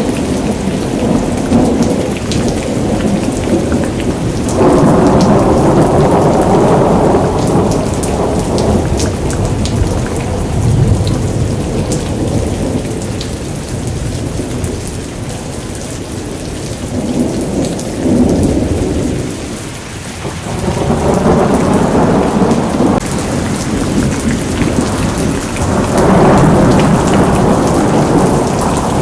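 Thunderstorm: heavy rain pouring steadily with many sharp ticks of drops hitting a surface, while thunder rolls in several long swells, strongest about five seconds in and again near the end.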